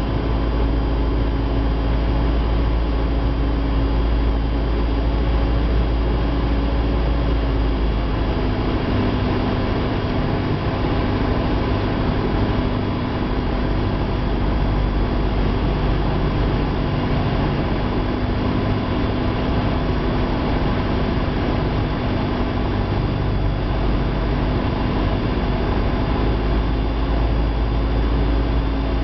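Cessna 172's piston engine and propeller droning steadily, heard inside the cabin on approach. The engine note drops slightly about a quarter of the way in and comes back up near the end.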